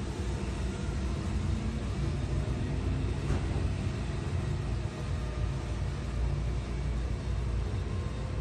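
Tokyu 8500-series electric commuter train running along the track, heard from inside its cab: a steady low rumble with faint steady tones above it, and a single short click about three seconds in.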